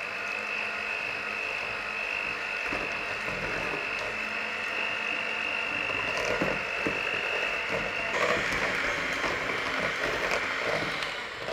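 Electric hand mixer running steadily with a high whine, its beaters whisking eggs into creamed butter and sugar in a stainless steel bowl. The whine turns rougher about eight seconds in, with a few clicks of the beaters against the bowl.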